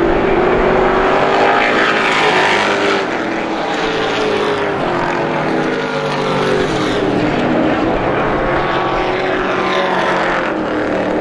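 Several stock-car racing trucks' engines running hard together around a short oval. Their pitch rises and falls as the trucks pass and go through the turns, with several engine notes overlapping.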